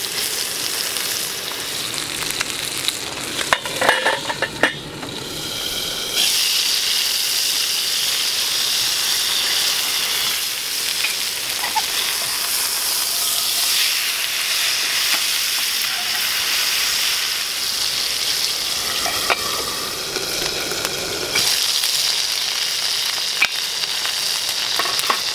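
Chicken frying in oil in a small frying pan, sizzling steadily, with a wooden spatula clattering and scraping against the pan a few seconds in. The sizzle turns louder about six seconds in.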